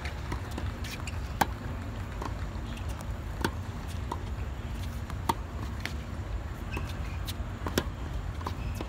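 Tennis rally on an outdoor hard court: the sharp pop of racket strings striking the ball and the ball bouncing, a loud hit about every two seconds with fainter hits and bounces between, over a steady low rumble.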